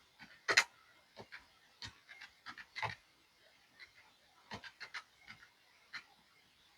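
Faint, irregular light clicks and taps, the loudest about half a second in and near three seconds: calculator keys being pressed as a total is recalculated.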